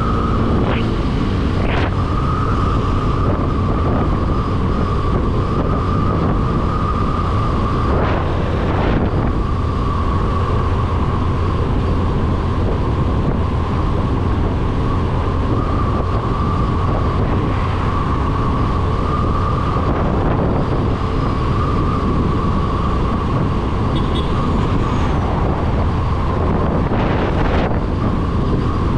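Motorcycle engine running steadily at cruising speed, with wind rushing over the microphone, heard from the rider's seat.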